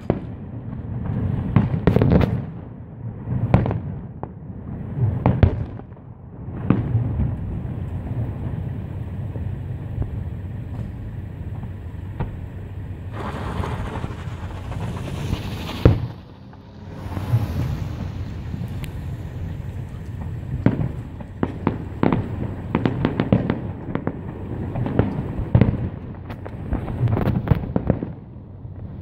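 Aerial fireworks display: shell bursts booming one after another, with clusters of rapid crackling pops.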